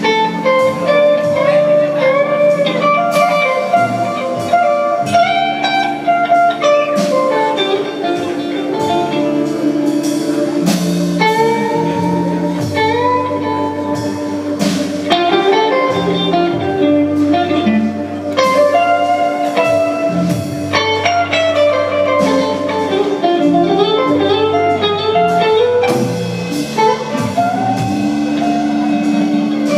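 Live blues band: an electric guitar plays a lead with bent notes over long held Hammond B-3 organ chords, bass and drums.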